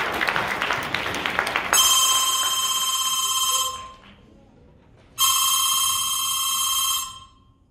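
Telephone ringing twice, each ring about two seconds long with a gap of about a second and a half between them. A short burst of clattering noise comes before the first ring.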